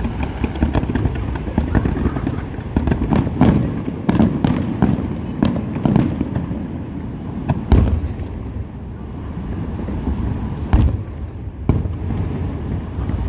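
Fireworks display going off: a dense run of bangs and crackling in the first half, then fewer, louder booms, the two biggest about eight and eleven seconds in, over a steady low rumble.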